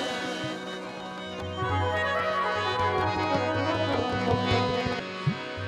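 Instrumental break in a Saraiki folk song: a sustained held melody, with a drum beat entering about a second in and a few sharp drum strokes near the end.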